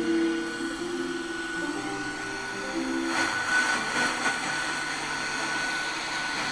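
Radio static and hiss from a reproduction AM/FM radio-phonograph as its tuning knob is turned, with short tones that shift pitch in the first few seconds.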